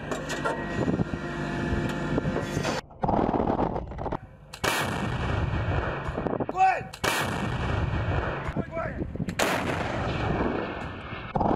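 2S7 Malka 203 mm self-propelled guns firing: a run of heavy cannon blasts a second or two apart, each with a long rumble after it.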